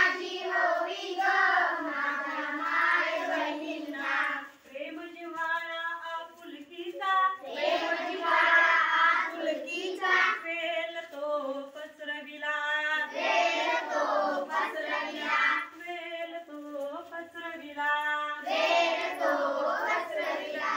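Group of children singing a song together in phrases, with fuller, louder passages about every five seconds between thinner stretches of fewer voices.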